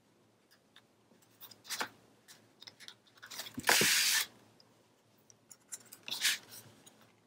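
Paper and cardstock rustling and sliding across a cutting mat as a scrapbook page is handled and turned over. The loudest rustle is a sweep of about half a second a little past the middle, with smaller rustles before and after it.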